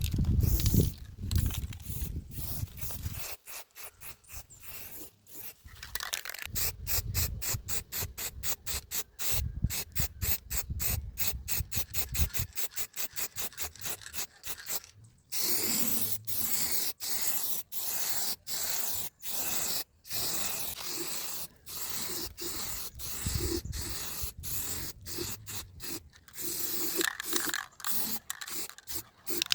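Quick, rhythmic back-and-forth rubbing strokes on wood, several a second, as the solid-wood speaker cabinet is worked by hand during finishing.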